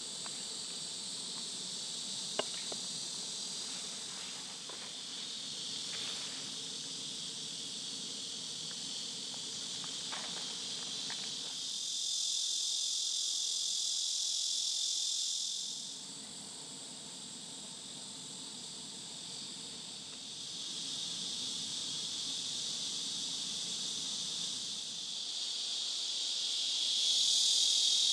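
A steady outdoor chorus of insects, a high, even chirring that swells louder for a few seconds around the middle and again near the end. One faint sharp tap comes about two and a half seconds in.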